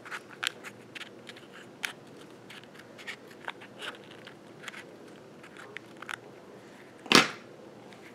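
Small pointed scissors snipping through the leathery shell of a ball python egg, a string of short quiet clips as the egg is cut open, with one louder brief sound about seven seconds in.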